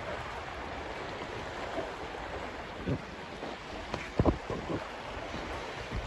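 Wind buffeting the microphone over the wash of sea waves, with a few short low bumps about three and four seconds in.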